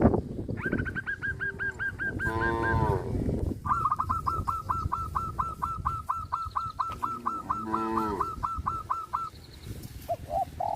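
Cows mooing, two short falling moos about two and a half and eight seconds in, over a bird's long runs of rapid, evenly repeated high chirps, several a second.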